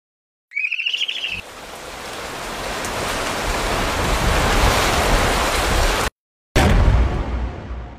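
A short wavering bird screech about half a second in, then a rush of heavy rain with a low rumble that swells and cuts off abruptly. After a brief silence a loud low boom hits and slowly fades.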